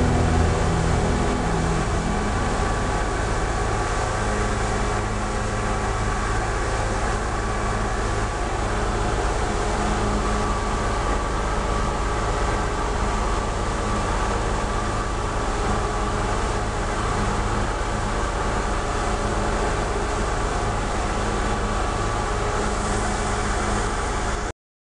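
Sport-fishing boat running at speed: a steady engine drone under rushing wake and water noise, with a few faint steady tones. Guitar music fades out in the first couple of seconds, and the sound cuts off abruptly just before the end.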